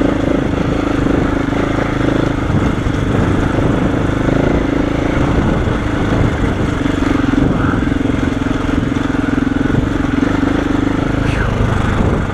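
KTM 690 Enduro's single-cylinder engine running steadily at low revs. Its note falls away about a second before the end.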